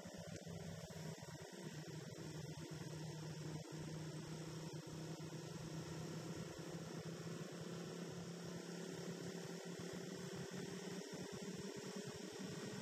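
Motorcycle engine running at a steady road speed, heard as a low, even drone whose pitch creeps slowly upward as the bike gathers speed.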